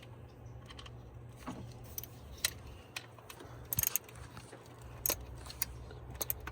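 Scattered, irregular metallic clicks and clinks of hand tools working on the engine as the valve-cover studs are tightened, with a quick little flurry of clicks about four seconds in.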